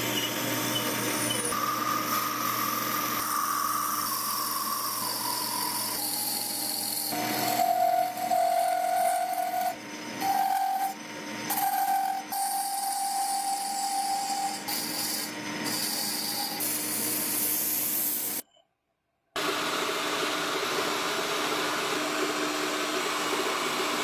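Wood lathe running while tools cut a turned wooden screwdriver handle, with scraping and shaving of the wood and a drill boring into it. The steady machine tone shifts in pitch several times, and the sound cuts out for under a second about three quarters of the way in.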